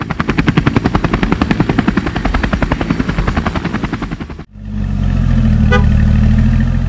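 Helicopter sound effect: a fast, even rotor chop that cuts off suddenly about four and a half seconds in. A steady engine running at idle follows.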